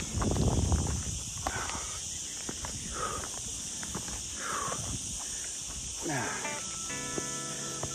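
Steady high buzz of cicadas in the pine scrub, with footsteps on the trail and a low rumble of wind on the microphone. Plucked guitar music comes in about seven seconds in.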